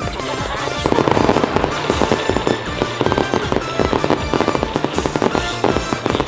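Starmine fireworks barrage: a rapid, dense string of shell bursts and crackling, over music playing along with the show.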